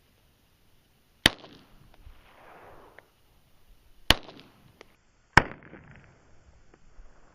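Three shots from a Glock 17 9mm pistol: one, then two more about three seconds and a second and a half apart, each followed by a rolling echo.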